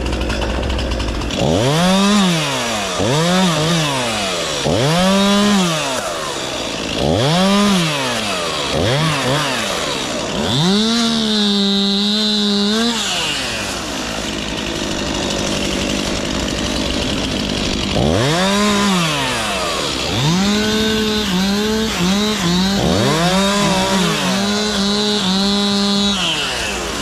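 Two-stroke chainsaw revved in a run of short throttle blips, each rising and falling. It is held at high revs for a couple of seconds near the middle, drops back to idle, then is revved again and held high with small dips near the end.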